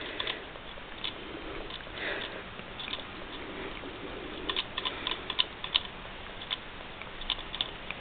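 Kitten licking the metal ball-bearing spout of a hamster water bottle. The ball clicks in quick irregular clusters, thickest about halfway through and again near the end.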